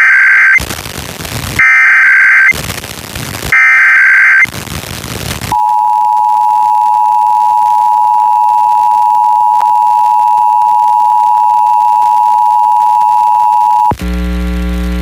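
Emergency Alert System test signal from a broadcast station: three one-second bursts of digital SAME header data with hiss between them, then the two-tone EAS attention signal held steady for about eight seconds. Near the end it cuts off suddenly into a steady buzzing hum.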